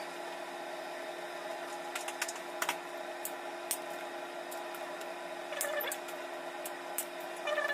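Kitchen shears clicking and snipping in short, irregular strokes from about two seconds in, over a steady mechanical hum.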